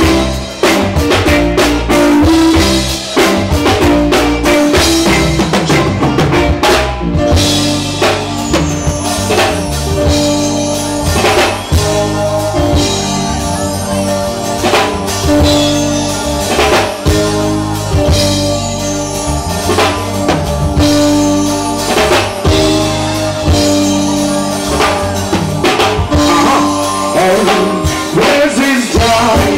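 Live reggae band playing: a drum kit keeps a steady beat over bass and keyboards.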